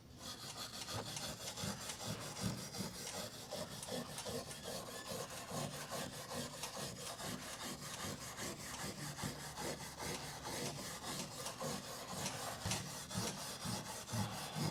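Quick, even back-and-forth rubbing strokes on a wooden board, a dry scratchy scrubbing like brushing or sanding the surface of charred white oak.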